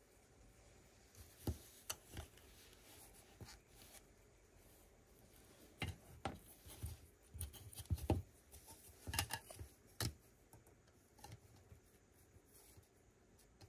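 Plastic Lego bricks clicking and rattling as they are handled and pressed together, in scattered sharp clicks that come thicker in the middle.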